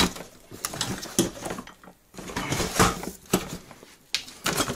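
Irregular clicks, knocks and rustles of a router's power cord being coiled and handled and the tool being settled in its cardboard box.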